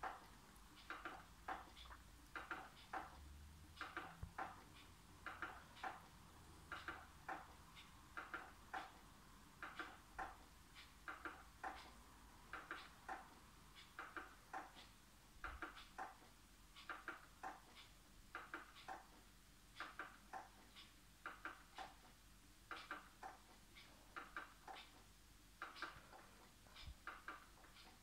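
Fisher-Price Aquarium Cradle Swing running: its swing mechanism gives off quiet, short clicks in small groups, repeating in a steady rhythm as the seat swings back and forth.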